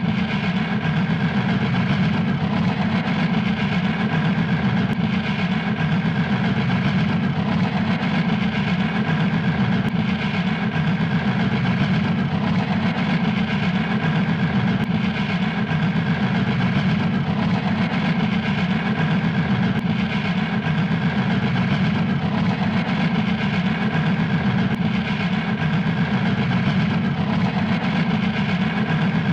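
Fast puffing sound effect: a steady, very rapid engine-like chugging that does not change pace or level.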